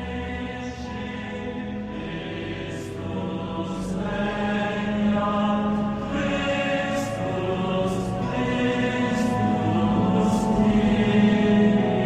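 Closing music: voices singing a chant, growing gradually louder.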